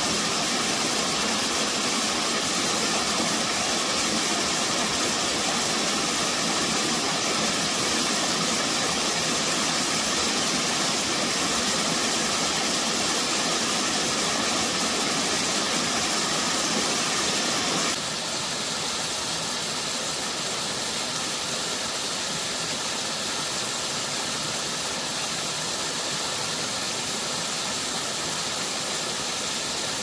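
Small mountain-stream waterfall cascading over boulders into a pool: a steady, loud rush of falling water. About 18 seconds in it changes to a second, smaller cascade, a little quieter and less hissy.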